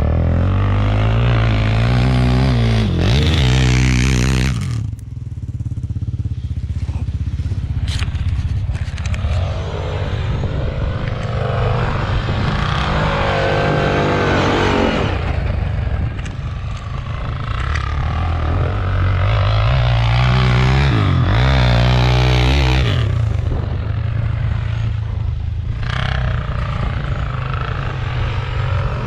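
Quad bike engines ridden hard at high revs, climbing in pitch as they accelerate and falling back, with strong surges about three, fourteen and twenty-one seconds in.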